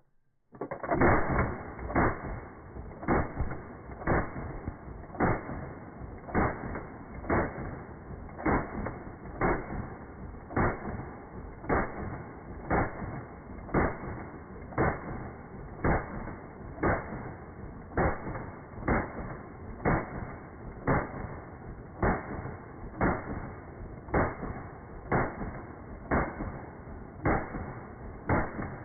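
M3A1 grease gun firing a long full-auto burst of .45 ACP, slowed down about eightfold: each shot is a deep, dull boom with a drawn-out tail, evenly spaced about one a second, starting about half a second in.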